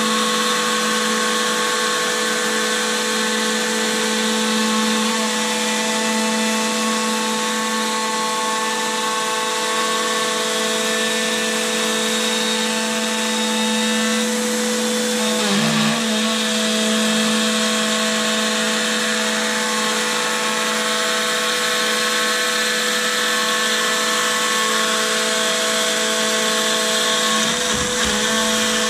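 Shapeoko CNC router running, its Carbide 3D spindle giving a steady whine of several tones as the gantry travels across the bed. The pitch wobbles briefly about halfway through, and a low rumble joins near the end.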